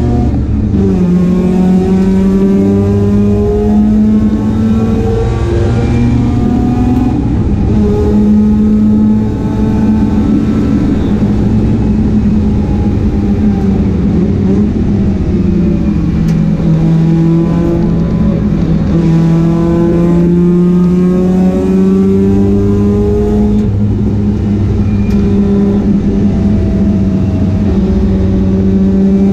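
Mazda RX-8 race car's engine under hard acceleration. The revs climb, then drop with each gear change or lift, over and over as the car laps.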